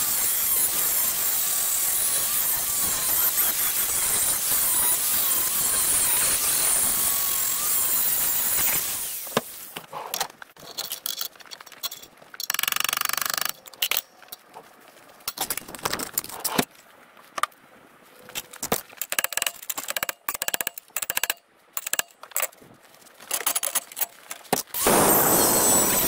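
Handheld angle grinder grinding metal in a vise, running steadily for about nine seconds. Then comes a stretch of scattered sharp taps, a pin being tapped out with a hammer. The grinder starts grinding again about a second before the end.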